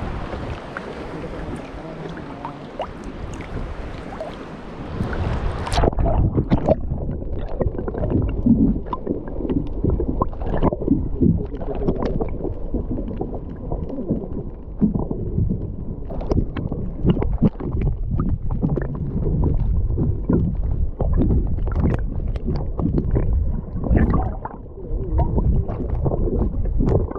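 Water sloshing and splashing at the surface, heard with a microphone right at the waterline. About six seconds in, the microphone goes under and the sound turns suddenly muffled and dull: a low underwater rush with many small knocks and clicks of moving water.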